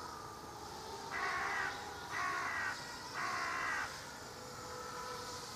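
A crow cawing three times, about a second apart, each caw about half a second long. Underneath is the faint steady whine of the racing quadcopter's motors.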